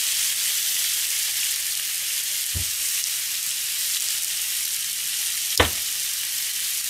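Chicken legs frying in a pan, a steady high sizzle. A kitchen knife knocks twice on a plastic cutting board while a chicken leg is being scored, the second knock louder.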